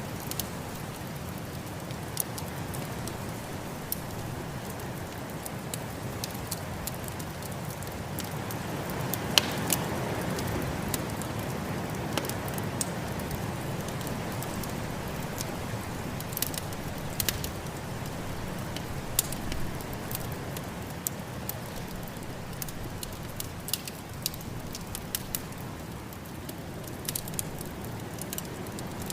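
Wood fire in a fireplace crackling, with scattered sharp pops, over a steady rushing noise of snowstorm wind that swells a little about ten seconds in.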